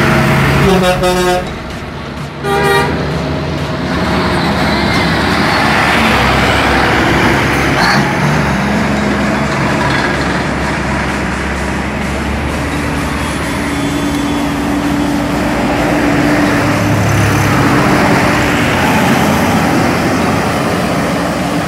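Heavy diesel trucks and buses running in slow traffic close by. A vehicle horn sounds twice in the first three seconds: a longer note, then a short one.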